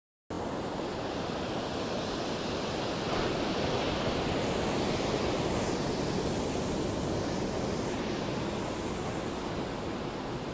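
Rough ocean surf: a steady wash of breaking waves, with some wind rumbling on the phone's microphone.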